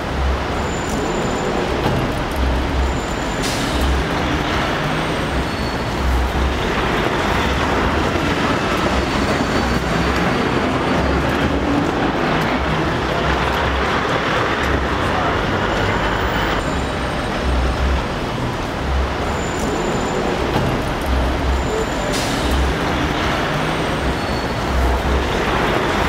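Busy city street ambience: steady road traffic noise with the voices of passers-by.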